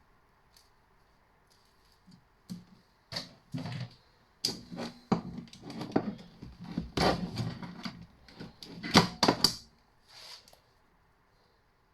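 Copper wire being stripped by hand: irregular clicks, knocks and short scraping rustles of the wire and its insulation being cut and pulled apart. The sounds begin about two seconds in and stop about a second before the end.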